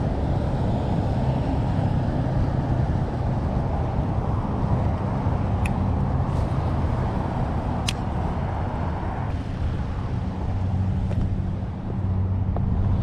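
Steady low rumble of motor traffic, with a couple of brief high clicks about six and eight seconds in.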